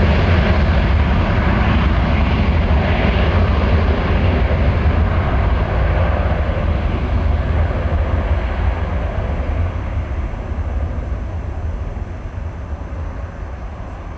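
Airbus A321-231 jet airliner's twin IAE V2500 turbofans: a loud, deep rumble with a broad roar above it, fading steadily as the aircraft rolls away down the runway.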